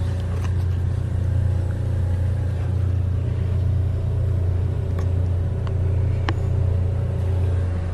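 A steady low mechanical hum, with a few faint clicks about five and six seconds in.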